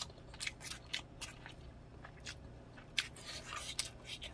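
Close-up eating sounds: a person chewing rice with wet mouth clicks and smacks, and a plastic spoon scooping and clicking against a plastic meal tray. The sharp clicks come irregularly, about seven over the few seconds.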